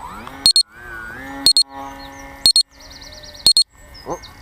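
An electronic beeper sounding a short, high double beep once a second, over a fainter pitched whine that glides up about a second in and then holds steady.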